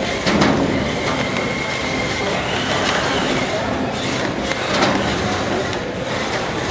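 Small remote-controlled combat robots' electric motors whirring steadily during a fight, with a faint high whine in the first few seconds and a few sharp knocks as the robots strike each other and the arena floor.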